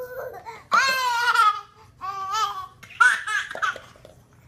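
A baby laughing in high-pitched bursts: a first shorter one, then three loud ones about a second apart.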